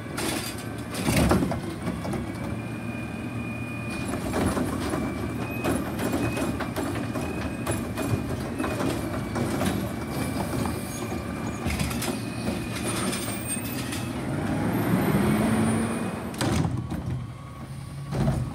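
Heil Rapid Rail automated side-loader garbage truck running while its hydraulic arm grabs a trash cart, lifts it and dumps it into the hopper, with a steady hydraulic whine and metal clanks over the engine's rumble. There is a loud bang about a second in, and the engine note rises around fifteen seconds in.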